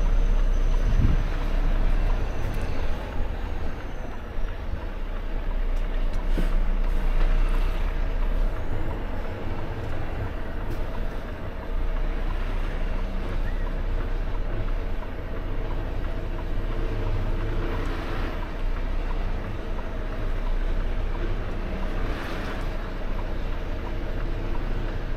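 Volvo FH truck's diesel engine running at low revs during slow manoeuvring, heard inside the cab, with a few brief hisses of the air brakes.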